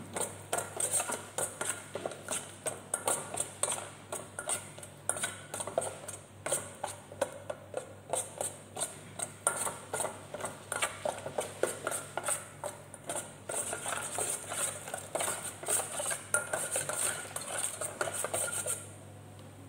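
Metal spoon stirring popcorn kernels in a stainless steel pot, scraping and clinking against the pot's bottom and sides several times a second. The kernels are being kept moving in melted butter over a low flame so they don't burn before popping. The stirring stops shortly before the end.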